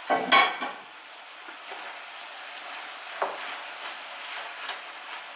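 Chicken and vegetables sizzling steadily in a deep frying pan while being stirred with a wooden spoon, with a single knock of the spoon against the pan about three seconds in. A brief louder sound comes at the very start.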